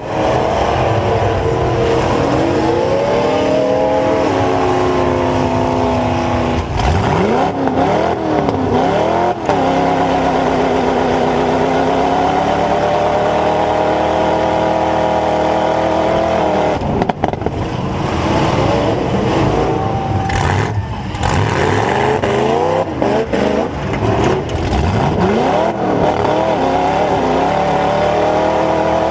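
Dodge Ram pickup's V8 engine with open headers and stacks, heard from inside the cab, revving up and down repeatedly while the truck drives in a demolition derby. Its pitch rises and falls in several long sweeps, with a few short drops in level.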